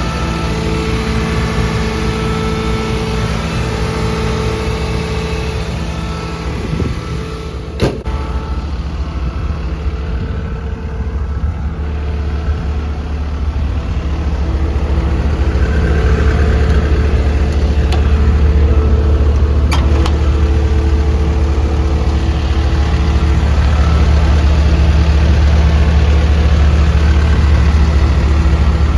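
Caterpillar 313F L hydraulic excavator's diesel engine running steadily, growing louder and deeper about halfway through. A sharp click sounds about eight seconds in and another near twenty seconds.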